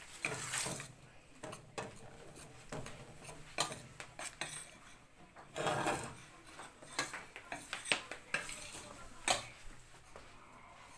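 A spoon stirring flour halva in a pot: repeated knocks and clicks against the pot with a few longer scrapes, the longest about six seconds in.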